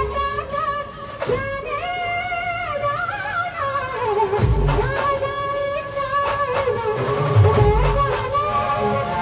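Indian wedding-style brass band playing a Bollywood film tune. A long, wavering horn melody is held over drums, with heavy bass-drum hits about four and a half and eight seconds in.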